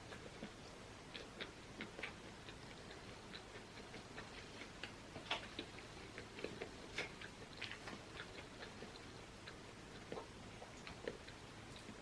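A person chewing soft bread close to the microphone: faint, irregular mouth clicks and smacks, with a stronger click about five seconds in and another about seven seconds in.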